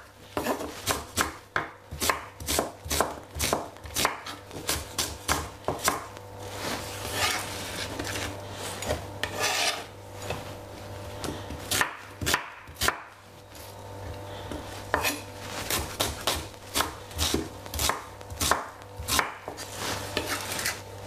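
Knife chopping a white onion on a wooden cutting board: irregular sharp strokes, roughly two or three a second, with a short pause partway through, over a steady low hum.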